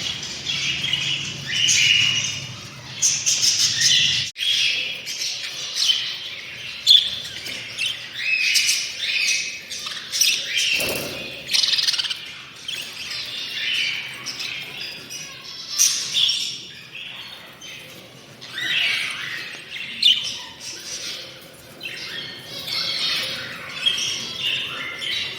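Budgerigars chattering: a busy, continuous mix of short chirps and harsh squawks from several birds.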